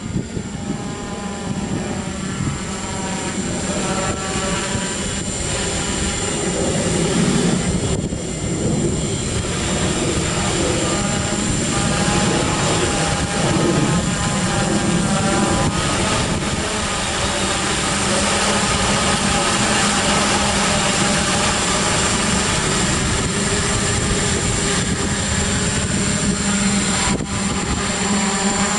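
FLYPRO X600 hexacopter's six electric motors and propellers buzzing in flight, over a steady lower hum. Several tones waver up and down together as the motor speeds adjust.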